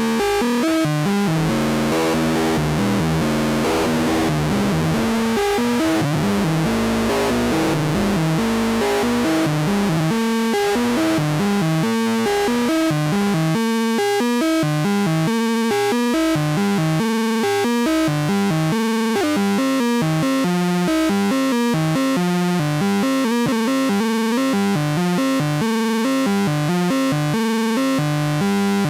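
After Later Audio bOSC, a triangle-core CEM3340-based analog Eurorack oscillator, playing a stepped sequence of synth notes with frequency modulation patched into its FM input. The tone starts thick and blurred, and from about halfway through thins into clearer separate notes as the patch is adjusted.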